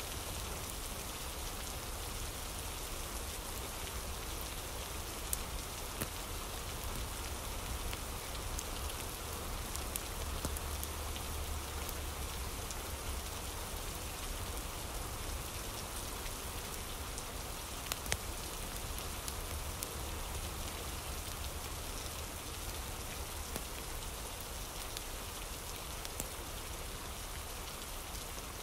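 Steady rain ambience: an even hiss of rain falling on a surface, with a low rumble underneath and a few isolated sharp clicks.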